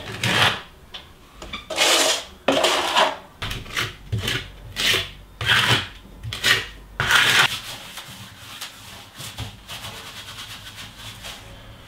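Steel plastering trowel spreading and scraping bonding plaster onto a wall: a dozen or so short rasping strokes in the first seven seconds or so, then fainter scraping.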